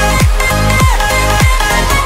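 Electronic dance music: a heavy bass drum hits about three times, roughly every 0.6 s, each hit falling sharply in pitch, under a sustained synth line.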